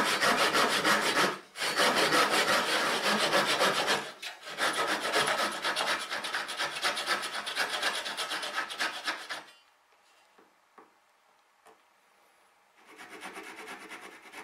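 Handsaw cutting a wooden tenon in fast rasping strokes, in three spells with brief breaks about 1.5 and 4 seconds in. It stops about 9.5 seconds in, and after a short pause with a few light ticks a small backsaw starts cutting more quietly near the end.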